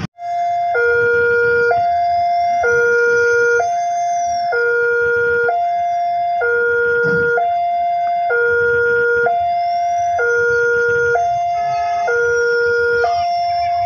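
Railway level-crossing warning alarm sounding a two-tone hi-lo signal, switching between a higher and a lower tone about once a second, the warning that a train is approaching the crossing.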